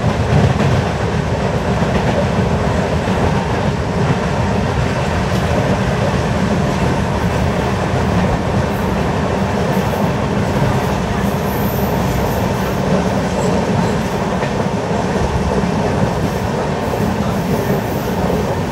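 LHB passenger coaches running at speed on the track, heard from on board: a steady rumble and rush of wheels on rail.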